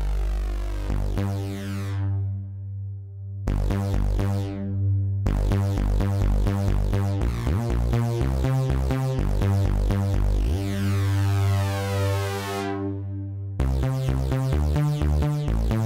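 Steinberg Simple software synthesizer in HALion Sonic 3 playing a bass preset. It plays a sequenced bass line of short repeated notes with a couple of pitch slides, and on held notes the bright top sweeps down as the filter closes.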